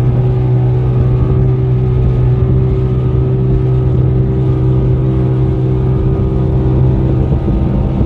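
Speedboat engine running steadily at cruising speed: a constant low drone over the rush of water and wind.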